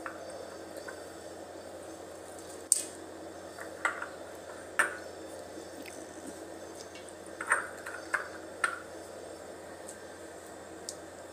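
Soaked moong dal being added to rice flour in a stainless steel plate: a handful of short, sharp taps and clinks of a utensil against the plate, the loudest almost three seconds in, over a steady faint hum.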